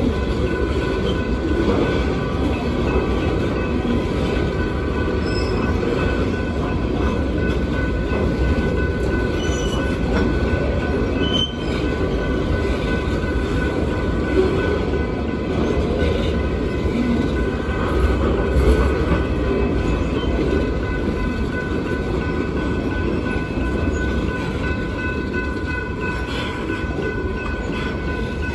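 Freight train's hopper cars rolling steadily past at close range: a continuous low rumble and clatter of wheels on the rails, with a steady high ringing tone running over it.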